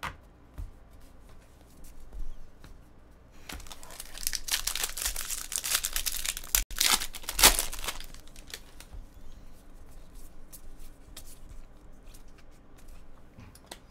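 Foil wrapper of a Bowman Draft jumbo pack of baseball cards being torn open and crinkled, for about four seconds starting a few seconds in. Afterwards there is fainter clicking as the freshly pulled cards are shuffled and sorted by hand.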